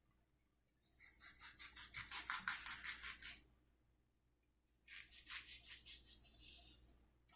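Kitchen knife cutting fruit or vegetables into small pieces, quick back-and-forth sawing strokes at about five a second, in two runs of two to three seconds each.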